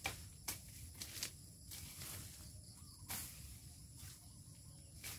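Blade slashing through dry sugarcane leaves and weeds at the base of the cane, a few sharp irregular strikes and rustles about a second apart, over a steady high-pitched hum.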